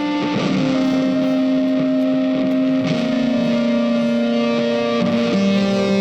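Background music: guitar with effects playing long held notes that move to a new pitch every two seconds or so.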